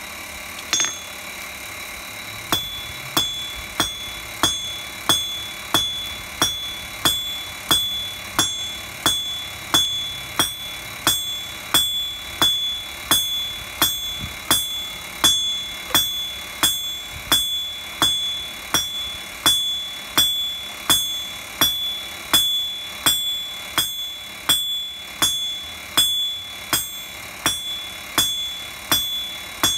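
Blacksmith's hammer striking a red-hot bar on an anvil in a steady rhythm, about three blows every two seconds, each blow ringing with the anvil's high, clear tone. A single blow comes about a second in, and the steady hammering starts about two and a half seconds in.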